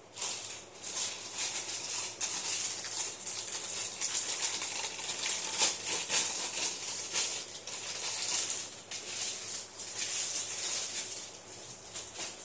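A dense, continuous rattling noise made of many small clicks, starting suddenly and dying away near the end.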